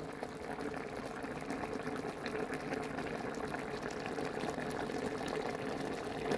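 Broth of a steamed fish medley bubbling in a pot, a steady simmer with many small pops, the stove having just been switched off.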